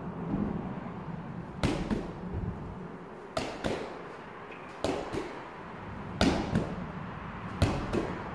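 Medicine ball thrown against a wall and caught, five times at about one-and-a-half-second intervals. Each throw gives a sharp smack followed a fraction of a second later by a second thud.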